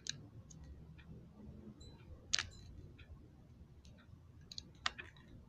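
A few faint, irregular clicks and light taps over a low steady hum, the sharpest about two and a half seconds in and another near the end.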